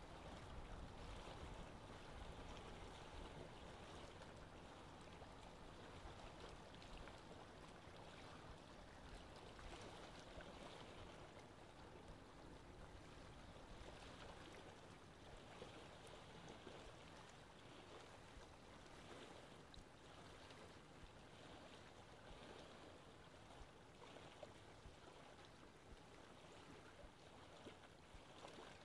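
Faint, steady trickling and bubbling of aquarium water.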